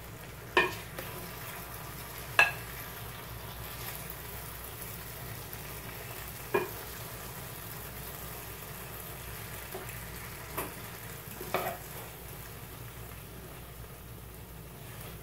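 A serving spoon scooping penne in tomato sauce out of a pot onto a plate, knocking against the pot and plate in about six sharp, briefly ringing clinks over a steady hiss.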